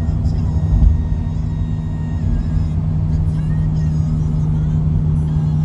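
Road noise inside a moving Mitsubishi car's cabin: steady engine and tyre drone with a low rumble, and a single thump about a second in.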